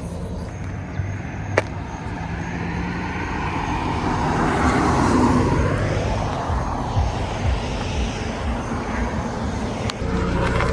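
Road vehicle noise: a steady low rumble, with a broad whoosh of noise that swells about halfway through and then eases off.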